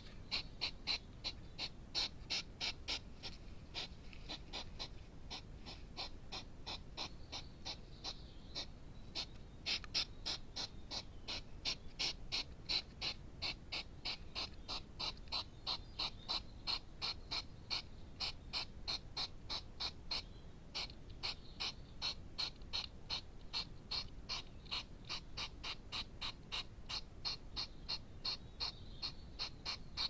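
Hedgehogs chewing crunchy dry food at a feeding bowl: a steady run of short, crisp crunches, about three a second.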